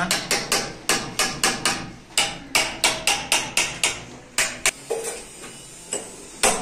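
Hand hammer striking a steel chisel against a brick wall, chipping out a recess to set an electrical joint box. The blows are quick and even, about three to four a second, each with a short metallic ring, then they pause about five seconds in and one more blow comes near the end.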